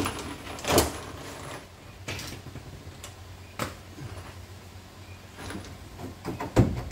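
A few separate knocks and scrapes of rusty sheet metal as the rear guard of a 1964 Datsun 1000 wagon is pulled and handled. The sharpest knock comes about a second in, and a heavier thump near the end.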